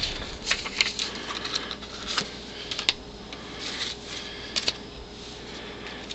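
Old postcards being handled and shuffled by hand: irregular paper rustles with light clicks and taps.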